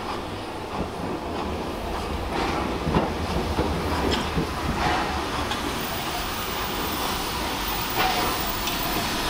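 Steam-hauled heritage train running along the line: a steady low rumble with a sharp click of the wheels every second or so.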